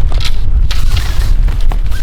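Wind buffeting the microphone in a loud, continuous low rumble, over scattered rustles and small clicks of tent fabric and poles being handled.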